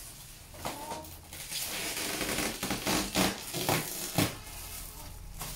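Rustling, scraping handling noise with a few sharp knocks, the loudest about three and four seconds in.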